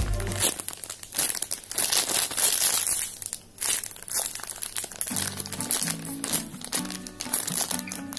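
Clear plastic bag crinkling again and again as a thin foam squishy toy sealed inside it is squeezed in the hands. Background music plays, plainest at the very start and from about five seconds in.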